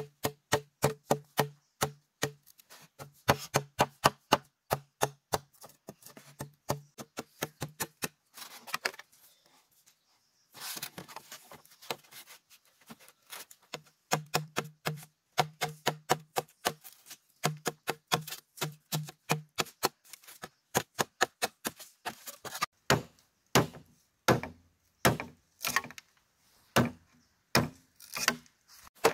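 Rapid, repeated strikes of a hand tool on bamboo, about three a second, many ringing briefly with a low tone. About a third of the way in the strikes give way to a couple of seconds of scraping noise, and the last few strikes are heavier.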